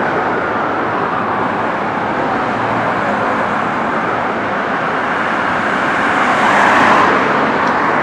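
Street traffic with steady tyre and engine noise, a car passing close about six to seven seconds in. A receding fire engine's siren fades out in the first couple of seconds.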